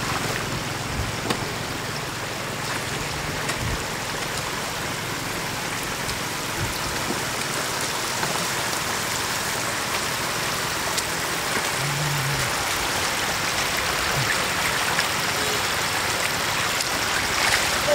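Steady rush of shallow floodwater running over mud and grass.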